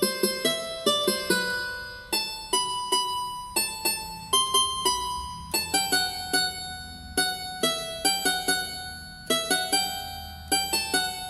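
Casio portable electronic keyboard playing a slow single-note melody, one key at a time, each note starting sharply and fading, in short phrases with brief pauses between them.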